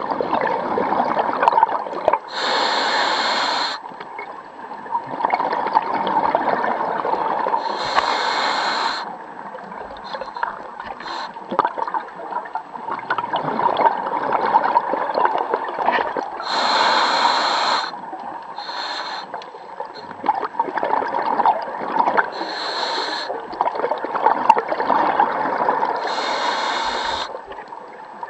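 Scuba regulator breathing heard underwater: five short hissing inhalations through the demand valve, each followed by a long crackling rush of exhaled bubbles.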